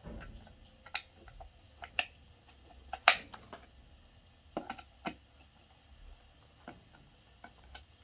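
Scattered light clicks and knocks as particleboard drawer panels are handled and fitted together, the sharpest about three seconds in.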